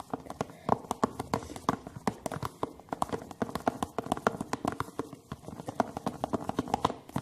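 A spoon stirring thick glue and liquid-soap foam in a container, with rapid clicks and taps of the spoon against the sides, several a second.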